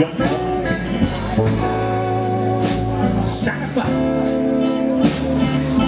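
A live band playing an instrumental passage between sung lines: electric guitars over upright bass and drum kit, with held guitar notes and steady cymbal and drum strokes.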